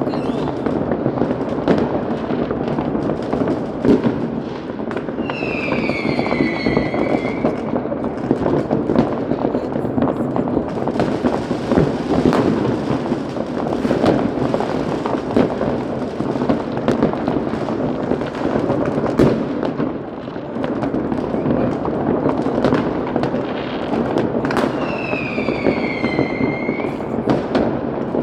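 Fireworks going off continuously: a dense mix of bangs and crackling, with a whistling tone that falls in pitch heard twice.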